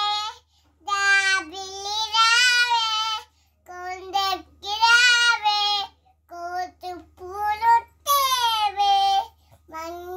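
A toddler singing a Telugu nursery rhyme in a high, childish voice, in several short phrases of held notes with brief breaks between them.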